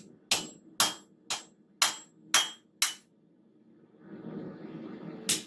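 Hand hammer striking hot steel, a railroad spike being forged, on an anvil: six ringing blows about two a second, then a pause filled by a low rushing noise and one more blow near the end.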